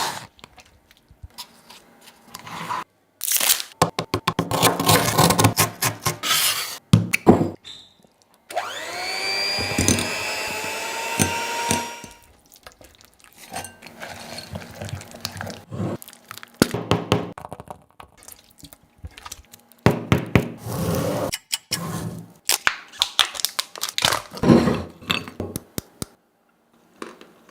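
Kitchen preparation sounds: bursts of crunching and cracking, then about three seconds of an electric kitchen appliance motor spinning up in rising pitch and stopping suddenly, then scattered clicks, knocks and scrapes of utensils.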